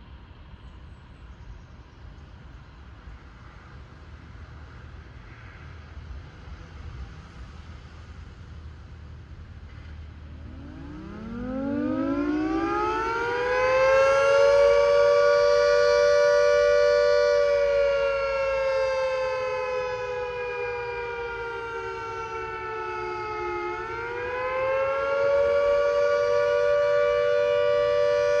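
A Secomak CS8 siren winds up from a low pitch to a loud, steady high tone over about three seconds, sounding two close pitches together. It then slowly sinks and rises again near the end. This is the wailing nuclear accident warning signal, sounded as a test.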